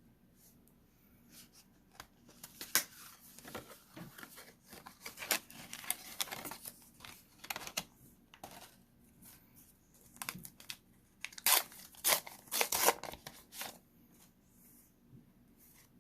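Pokémon card pack wrapper being torn open and crinkled by hand: a run of sharp rips and rustles from about two seconds in, loudest near the end, dying away a couple of seconds before the end.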